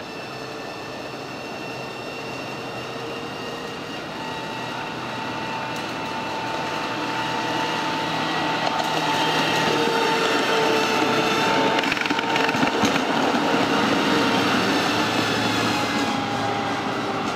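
Miniature railway train running past with passengers aboard: a steady mechanical whine, with the wheels clicking over the rail joints a few times. It grows louder as the train comes near and starts to fade at the very end as it moves away.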